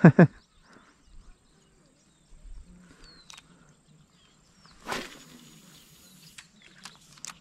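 A spinning rod cast: a sudden swish about five seconds in, then the fishing line hissing off the reel for about a second and a half, with a few ticks near the end. Faint bird chirps sound throughout.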